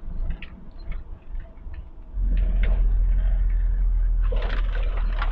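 Inside the cab of a Scania G 410 truck on a rough gravel road: short rattles and knocks over a low rumble, then about two seconds in a deep rumble rises sharply and stays loud.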